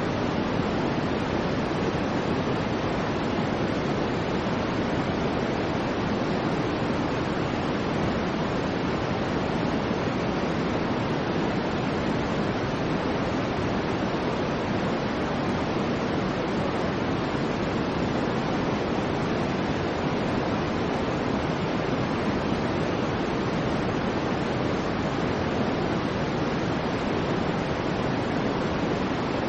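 Soft, steady white-noise sleep sound: an even hiss weighted toward the low-middle range, with no swells or changes.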